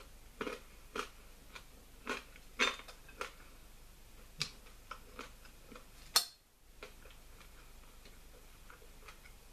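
Knife and fork clinking against a dinner plate as food is cut, in irregular light clicks, the sharpest about six seconds in.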